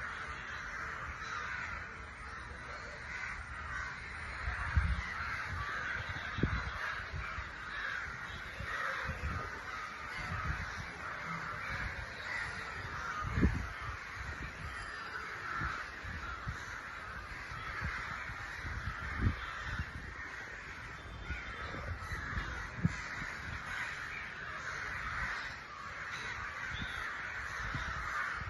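A flock of crows cawing continuously, many calls overlapping into a steady din, with a few brief low thumps, the loudest about halfway through.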